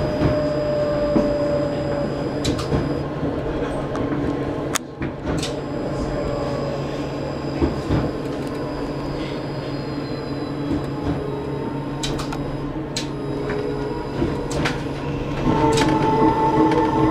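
Tram running on street track, heard on board: a steady motor hum over the rumble of the wheels on the rails, with a sharp click now and then. A louder whine sets in a little before the end.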